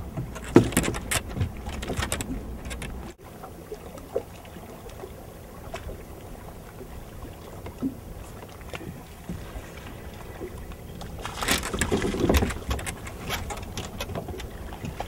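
Scattered knocks and clicks of tackle and handling on a fishing boat, with a low rumble of wind. About eleven seconds in comes a burst of splashing and crackle as a small hooked fish thrashes at the surface and is swung out of the water.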